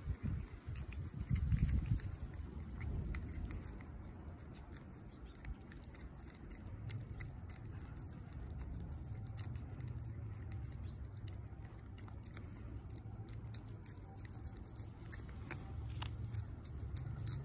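An orange tabby cat licking chicken paste from a squeeze tube, its tongue making many small wet clicks.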